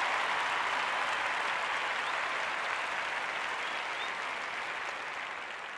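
Crowd applauding, a dense steady clapping that slowly fades out.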